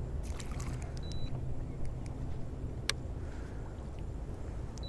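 Low, steady rumble of wind and water around a small fishing boat on the camera microphone, with a few light clicks near the start and one sharp click about three seconds in.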